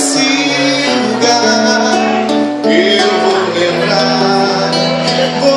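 Live MPB music: an instrumental passage of acoustic guitar and held pitched notes, with no singing.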